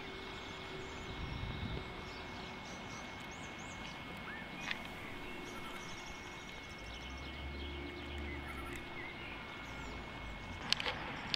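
Outdoor park ambience: a steady background hiss with faint, scattered small-bird chirps, and a few sharp clicks near the end.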